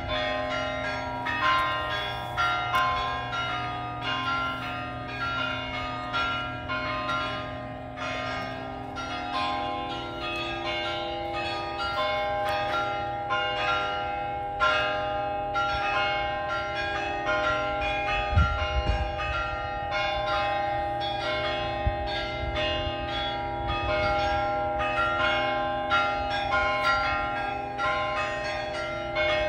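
Church bells pealing: several bells struck one after another in quick succession, several strikes a second, their ringing tones overlapping without a break.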